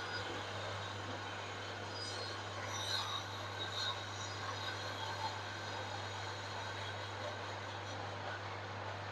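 Brake lathe running steadily with a constant low hum, with a few faint high squeals about three to four seconds in, as the removed brake drums are skimmed to cure the brake pedal vibration.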